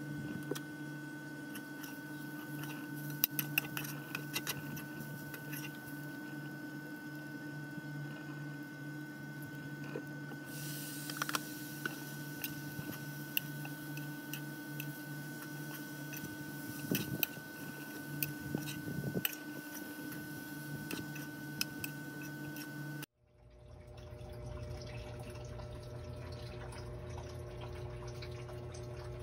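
A metal spoon clinking and scraping in a metal pan of rice and chicken as it is stirred, in scattered sharp clicks over a steady hum. About two-thirds of the way through, the sound cuts abruptly to a different steady hum.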